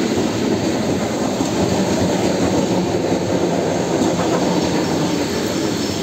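ET2EM electric multiple-unit train passing close by, its carriages rolling over the rails with a loud, steady rumble.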